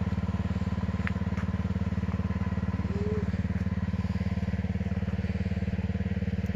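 Small engine running steadily at a constant speed, a fast, even, low-pitched throb.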